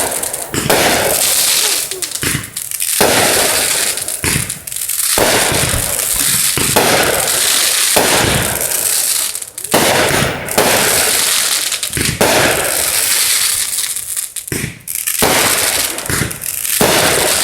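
Consumer fireworks going off: a dense run of sharp bangs and crackling, with one report close on another and only brief lulls.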